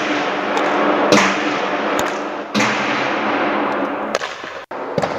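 Hockey pucks being shot with sticks on a bare concrete rink floor: about four sharp cracks in quick succession, each trailing off in echo, then quieter knocks.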